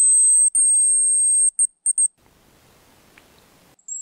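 Hazel grouse decoy whistle (манок) blown in the pattern of a cock's song: two long, very high whistles, the second longer, then a quick run of short notes about two seconds in. Near the end, a second whistle a little lower in pitch begins.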